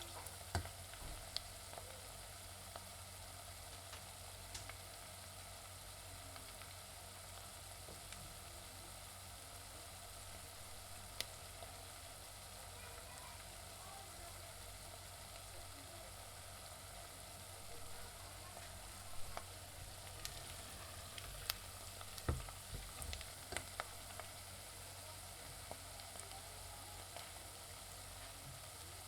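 Onions frying in a pan: a steady sizzle with scattered crackles, and a run of louder clicks and knocks about two-thirds of the way through.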